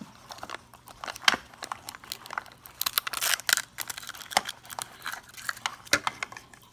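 Printed plastic wrapper of a Zuru 5 Surprise Mini Brands ball crinkling and tearing as it is peeled off, then the white plastic capsule being pried open, with irregular clicks and crackles throughout.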